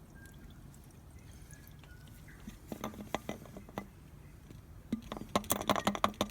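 The last of the engine flush trickles from its bottle into the oil filler with faint gurgles. From about three seconds in come sharp clicks and taps, which quicken to about five a second near the end.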